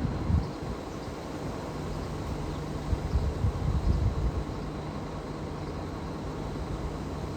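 Low, steady rumble of a Metro Alstom Comeng electric train on the move, with louder uneven swells of rumble near the start and again around three to four seconds in.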